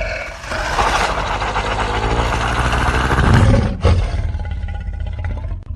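Monster roar sound effect: a long roar, then a second one beginning almost four seconds in.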